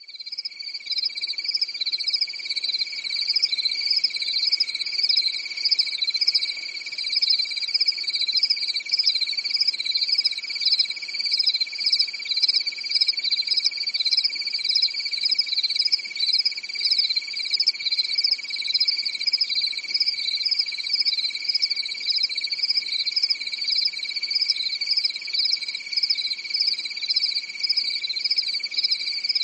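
Chorus of insects: a steady high-pitched buzz with a faster, regularly pulsing trill above it, running on without a break.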